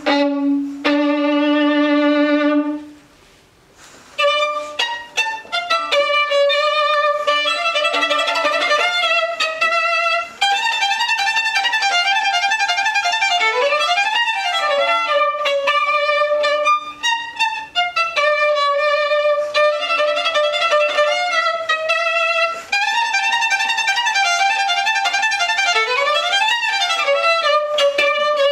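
A violin playing: a held note ends about two and a half seconds in, and after a brief pause the violin plays a fast passage of running notes, twice sweeping quickly down and back up.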